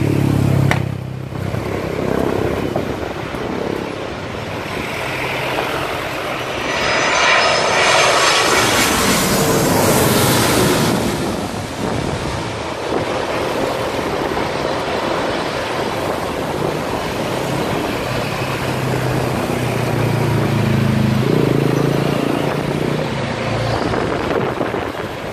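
Twin-engine jet airliner on final approach passing low overhead, its engine whine and rumble swelling to the loudest point about eight to ten seconds in and then fading away. Road traffic noise runs underneath, with a vehicle engine passing close near the start and a low engine hum about twenty seconds in.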